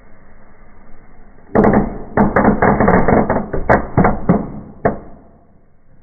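Small fireworks going off in a fireplace. Under the hiss of the spark fountains, about a dozen loud cracks come in quick succession from about a second and a half in, with a last single crack about a second before the end.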